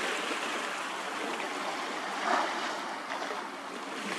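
Water washing at the shoreline, a steady rushing with one brief louder swell a little past halfway.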